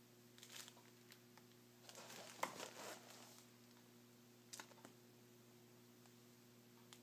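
Faint crinkly rustling of fabric as a cat rolls and squirms on it, in a few short bursts, the loudest around two and a half seconds in.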